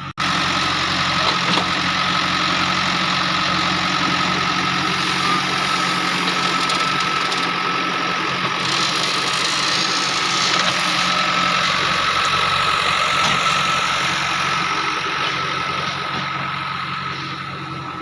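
JCB 3DX backhoe loader's diesel engine running steadily, a little louder in the middle and easing off toward the end.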